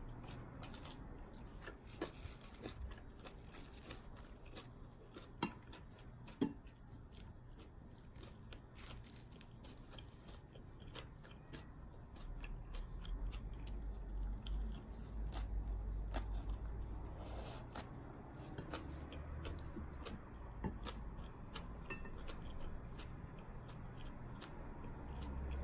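A person eating, chewing and biting food, with a few sharp clicks and a low rumble through the second half.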